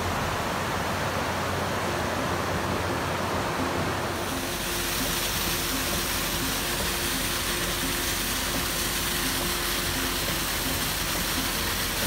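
A duller rushing noise gives way about four seconds in to the steady, hissing rush of a swollen waterfall pouring down a rock face and splashing at its foot.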